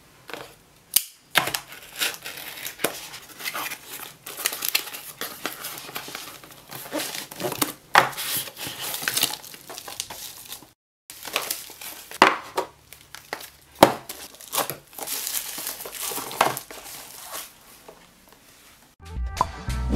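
Parcel being unpacked by hand: plastic bubble wrap crinkling and cardboard and packing tape rustling and tearing, with many small knocks and scrapes of boxes on a wooden table. Music starts near the end.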